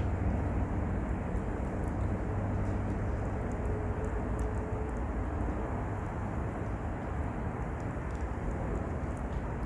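Wood fire burning in a mesh fire pit, with a few faint crackles over a steady low rumble.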